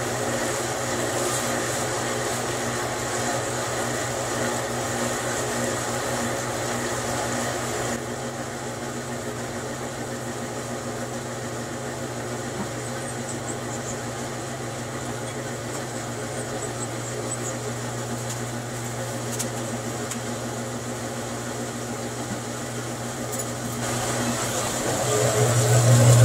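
Wet shaker table running, a steady machine hum from its drive. It eases slightly about eight seconds in and grows louder near the end.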